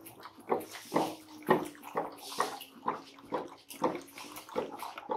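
Water drops plopping one after another, about two a second, each a short hollow pop, over a faint steady tone.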